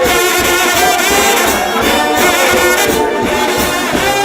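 Trombone shout band playing a gospel tune: several trombones hold notes and slide between pitches over a steady drum beat.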